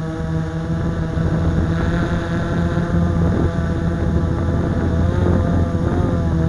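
Blade 350 QX quadcopter's four brushless motors and propellers running in flight, heard through a camera mounted on the drone itself. A steady whine made of several tones that drift slightly up and down in pitch.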